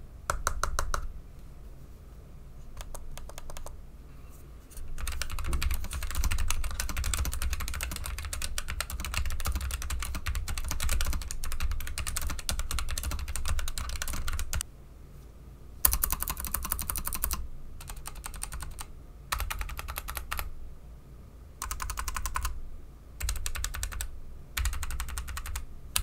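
Fast typing on a low-profile mechanical keyboard built into a laptop. There are a few short bursts of keystrokes at first, then about ten seconds of unbroken rapid clacking, then several short runs of typing with brief pauses between them.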